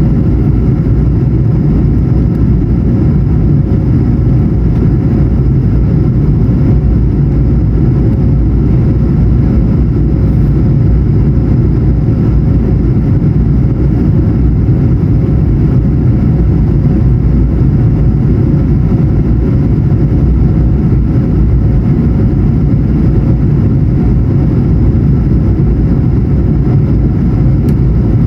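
Steady, loud cabin noise of an Airbus A220-100 in flight: a deep, even rumble of airflow and its Pratt & Whitney PW1500G geared turbofans, with a thin steady hum above it.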